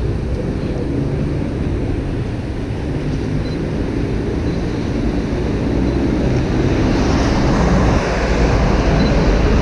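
Steady wash of rain and traffic noise on a wet street, with wind on the microphone, growing louder over the last few seconds.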